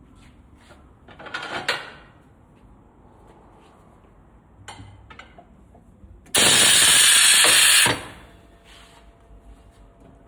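A tyre-shop tool running in one loud, even burst of about a second and a half, more than six seconds in, after a shorter clatter and a few light knocks of tool handling earlier.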